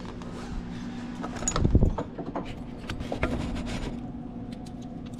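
Handling noise: scattered clicks, knocks and rubbing, with one dull thump a little under two seconds in, over a steady low hum.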